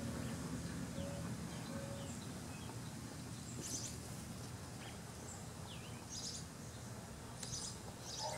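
Outdoor background with birds chirping now and then over a low, steady background noise.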